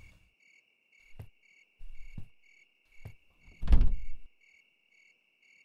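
Crickets chirping steadily in the background, with three soft knocks about a second apart and a louder, longer thud of a wooden door near the end.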